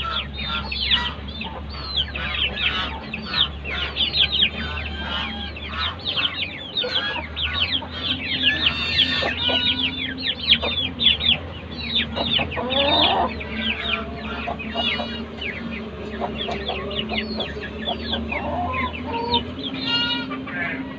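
Aseel chickens calling in their coop: a constant chatter of short, high calls mixed with clucking, over a low steady hum that stops near the end.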